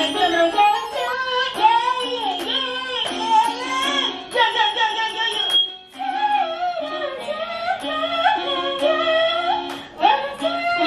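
A woman singing a melody into a handheld microphone, accompanied by short held notes on a keyboard, with a brief pause about six seconds in.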